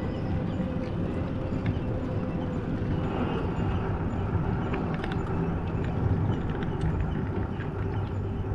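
A vehicle's engine running steadily with road and wind noise, heard from on board while driving, with a few faint clicks over the rumble.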